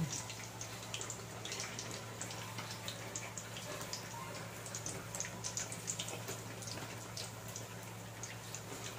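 Hot oil sizzling and crackling in many small pops around an egg-topped squash-and-cabbage fritter deep-frying in a pan, over a steady low hum.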